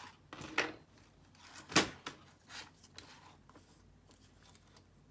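A few short knocks and clicks from objects being handled on a workbench. The loudest, sharpest one comes a little under two seconds in, with fainter ones before and after, then the room goes quiet.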